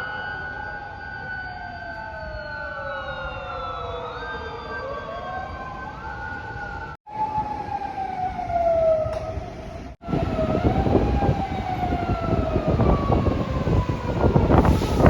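Japanese emergency-vehicle sirens, several wailing at once, their pitches sliding down and up out of step with one another. The sound breaks off abruptly twice, about 7 and 10 seconds in, and picks up again each time. Rushing noise grows louder under the sirens over the last few seconds.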